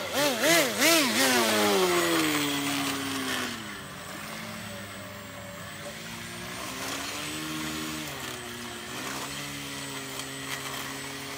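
Custom-built RC airboat's motor and caged air propeller, revved up and down quickly several times, loudest at the start. It then eases off and runs at a lower, steadier speed, with a couple of small rises in pitch.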